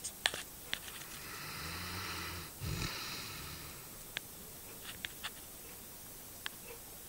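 Rhodesian ridgeback dog snoring in its sleep: one long buzzing snore lasting about a second and a half, ending in a short louder puff of breath, with a few small clicks around it.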